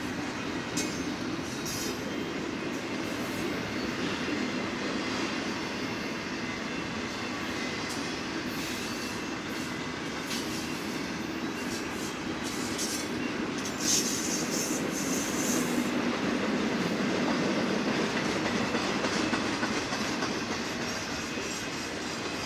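Double-stack intermodal well cars of a freight train rolling past on the rails: a steady rumble with scattered clicks of wheels over the track. A little past halfway a brief high wheel squeal rises over it.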